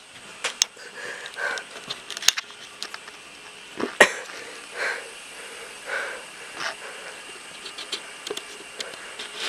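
A frightened person breathing hard and whimpering in short puffs, with a few scattered knocks and clicks, one sharp knock about four seconds in.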